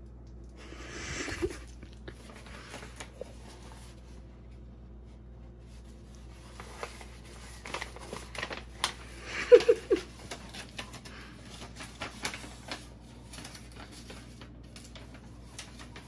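Sheets of paper rustling and crinkling as they are handled and unfolded, with scattered light clicks and taps. A couple of brief pitched sounds about ten seconds in.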